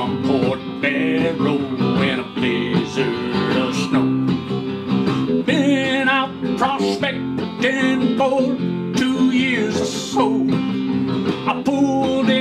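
Acoustic guitar strummed and picked without singing, the intro to a country song.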